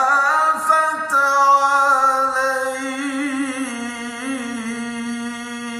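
A man's unaccompanied voice in melodic Quran recitation (tajweed), drawing out the last syllable of 'wa-zīnatahā' in one long held note with wavering ornaments in the pitch.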